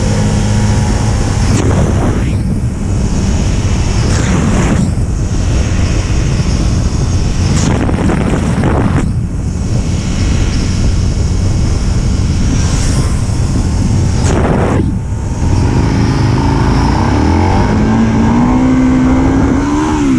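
Sport motorcycle engine pulling hard at speed under heavy wind noise, with brief dips about 2, 5, 9 and 15 seconds in where the rider shifts gear. In the last few seconds the engine note wavers up and down.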